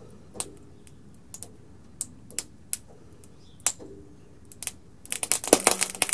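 A PLA 3D print creaking under the weight of an SUV tire being lowered onto it by a floor jack: a few scattered sharp clicks, then from about five seconds in a dense, louder run of crackling.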